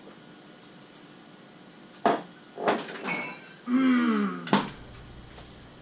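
A few sharp knocks and clicks of a rum bottle being handled, with a short sound falling in pitch just before a final knock.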